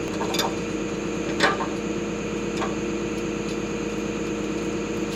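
Track hoe's diesel engine running steadily, with a few sharp knocks over it, the loudest about a second and a half in.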